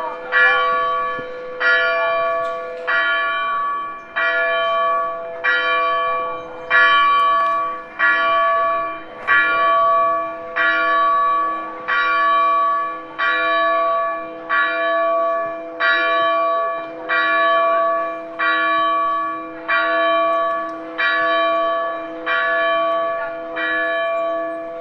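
Church bell tolling: about twenty strokes at an even pace, roughly one every second and a quarter, each stroke ringing on under the next.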